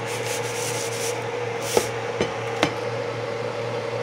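Dry raw rice rustling and scraping as a hand runs through it in a plastic bowl, with three sharp clicks around the middle. A steady low hum runs underneath.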